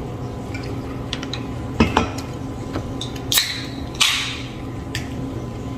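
A soda can being opened: a sharp crack of the pull tab a little past three seconds in, then a brief fizzing hiss of the carbonated drink about half a second later. A couple of light clinks of dishes come before it.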